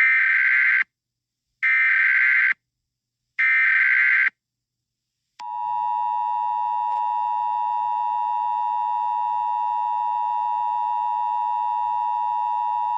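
Emergency Alert System header: three short bursts of digital data tones, each just under a second with brief gaps between them, followed about a second later by the steady two-tone EAS attention signal, which holds without a break.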